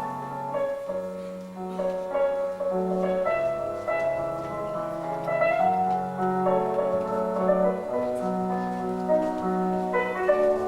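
Instrumental ballet music: a melody of held notes moving over a low bass line.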